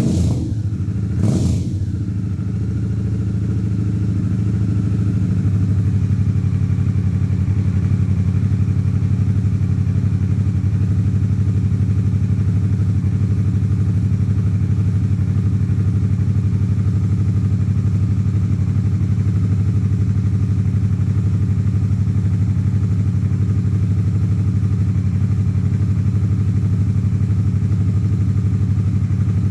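Harley-Davidson Sportster S's liquid-cooled Revolution Max 1250T V-twin engine. It gives two quick throttle blips near the start, then settles into a steady idle.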